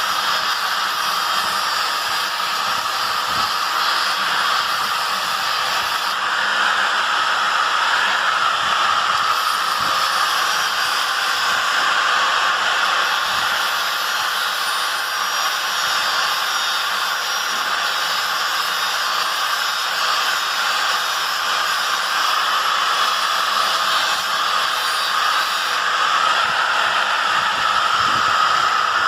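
A power grinding or polishing tool running steadily against the knife's steel blade, its pitch wavering slightly as the pressure changes.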